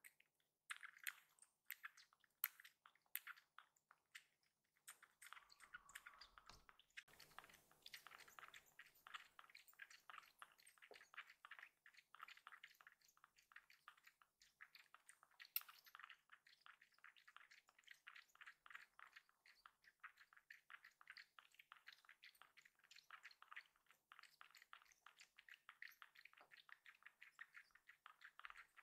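Faint, quick wet clicking and smacking of a tabby kitten suckling milk from a baby bottle's rubber nipple, several sucks a second without a break.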